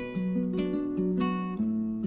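Background music: acoustic guitar being strummed and plucked, with chords changing several times a second.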